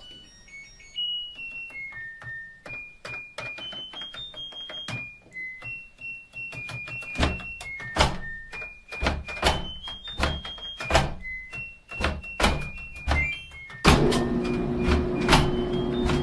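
Washing machine control panel beeping as its dial is turned and its buttons are pressed: a run of short electronic beeps at changing pitches, mixed with sharp knocks and clicks from the hand on the machine. Near the end a louder, noisier stretch with a steady low hum comes in.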